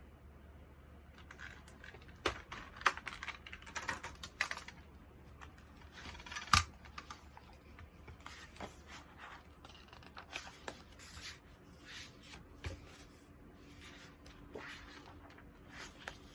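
Packaging being handled and opened by hand: irregular rustles, scrapes and sharp clicks, the loudest about two to three seconds in and again about six and a half seconds in.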